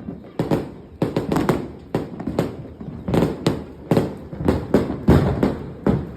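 Fireworks exploding in quick succession from a finale board: an irregular string of sharp bangs, about three a second.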